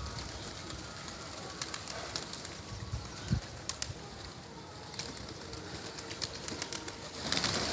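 Pigeons cooing softly, with scattered small clicks. A louder rush of noise comes in near the end.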